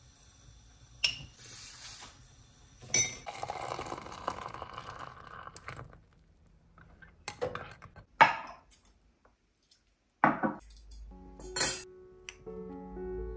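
Coffee-making sounds: a metal spoon clinking against a ceramic mug, a stretch of liquid pouring, and several more separate clinks and knocks of crockery and cutlery.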